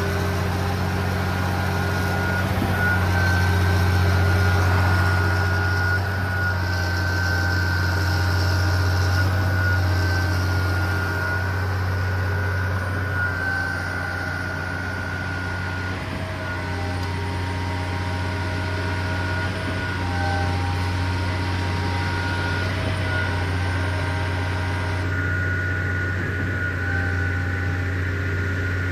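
Concrete mixer trucks' diesel engines running with a steady low drone, a thin high-pitched whine held over it.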